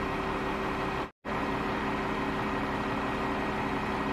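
Sanitation truck's engine idling with a steady low hum, the sound cutting out to silence for a split second about a second in.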